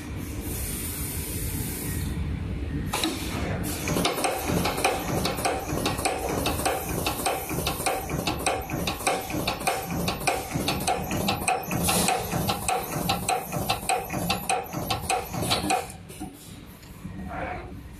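Terminal crimping machine for 1.27 mm pitch FFC flat cable at work: a hiss of air for the first couple of seconds, then a rapid run of mechanical clicks, several a second, as terminals are crimped one after another onto the cable, with another short hiss partway through. It quietens near the end.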